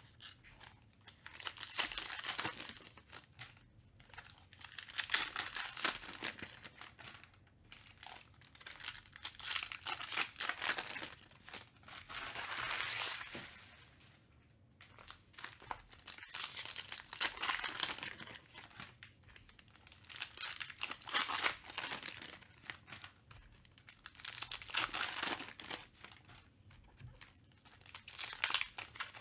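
Foil wrappers of 2021 Panini Mosaic Football card packs crinkling and tearing as the packs are ripped open by hand. The noise comes in bursts of a second or two with short pauses between them.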